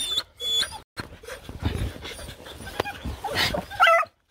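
Hunting dog panting hard at a burrow, with a short high-pitched whine just before the end.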